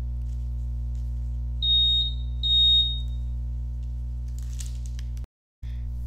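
Small battery-powered buzzer of a homemade pressure-plate alarm beeping twice, a high steady tone of about half a second and then a slightly longer one, as the foil plates are pressed together and close the circuit. Background music runs underneath.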